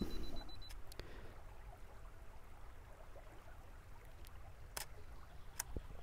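Camera self-timer beeping rapidly, stopping just under a second in, then the shutter clicking as the 2-second timer runs out. A few more sharp clicks follow later. Under it all is the faint steady sound of running water.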